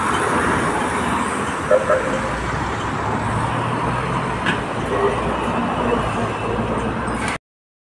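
Steady road traffic noise from passing vehicles, with a low rumble, cutting off abruptly near the end.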